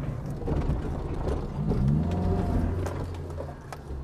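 A small 4x4 SUV's engine runs and revs up about two seconds in as it crosses rough ground, with a few sharp knocks from the chassis. The knocks are the loud suspension clunks of worn ball joints on the control arms and tie rods.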